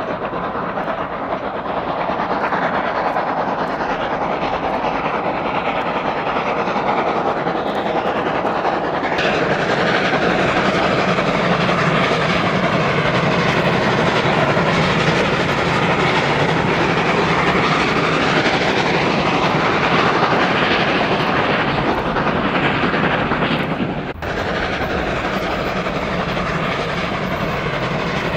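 Two steam locomotives double-heading a passenger train: their continuous exhaust beat mixed with the clatter of wheels on rail joints, growing louder through the middle. About 24 s in the sound breaks off and picks up again slightly quieter, from a single steam locomotive approaching.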